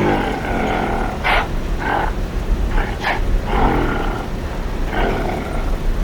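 An animal calling repeatedly: about six short, harsh calls in quick succession over a constant low rumble.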